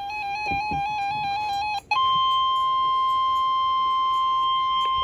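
Emergency alert broadcast tones: a quick warbling electronic tone stepping back and forth between two pitches, a short break, then a single steady alert tone held for about three seconds, the attention signal that comes before a severe thunderstorm warning.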